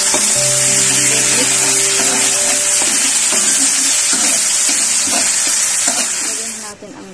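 Chopped garlic and red sauce sizzling loudly in hot oil in a metal pan. The sizzle cuts off abruptly near the end.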